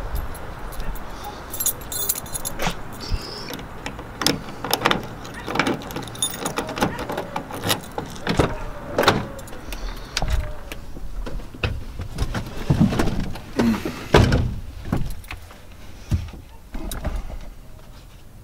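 Irregular clicks, knocks and rustling from a phone being handled while someone gets into a car, with a few louder thumps about thirteen to fourteen seconds in.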